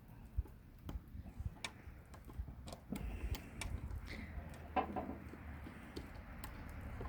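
Scattered small clicks and taps from handling the HID kit's plastic plug connectors at the headlight, with a low steady hum coming in about three seconds in.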